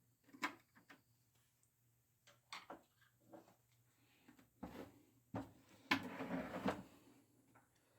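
Handling sounds from working on the Macintosh Classic's plastic case to take its back cover off: scattered faint clicks and knocks, with a scraping rustle about four and a half seconds in and a louder one from about six seconds in.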